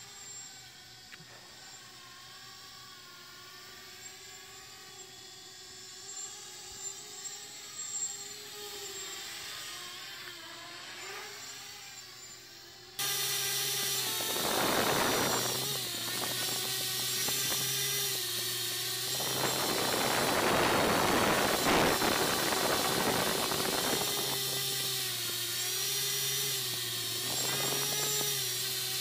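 MJX Bugs 3 quadcopter's brushless motors spinning Dalprop 6045 tri-blade propellers: a steady whine with several pitches that shift slightly as the throttle changes. It is faint and distant at first, then about halfway through becomes suddenly much louder and closer, with gusts of wind noise.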